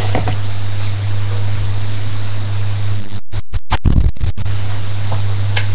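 A loud, steady low hum with hiss. The sound cuts out several times in quick succession a little past halfway.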